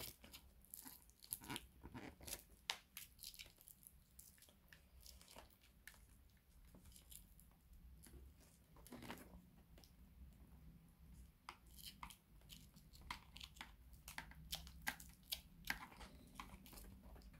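Faint, irregular rustling and clicking of hands working a microphone cable through a motorcycle helmet's padded lining.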